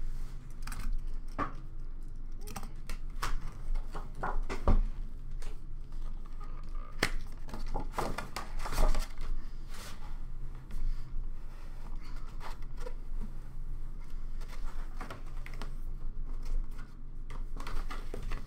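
Cardboard scraping and rubbing as a tight-fitting wooden inner box is worked against its cardboard outer box, with scattered taps and a few louder knocks of hands and box.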